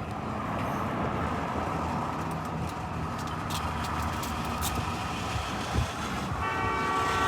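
Diesel freight train rumbling as it rolls, with a steady low engine note; about six seconds in the locomotive's horn starts sounding a multi-note chord.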